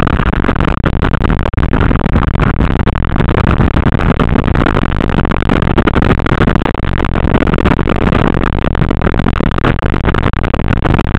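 Kitfox light aircraft's engine and propeller running, a loud, steady noise picked up close by a camera mounted on the airframe.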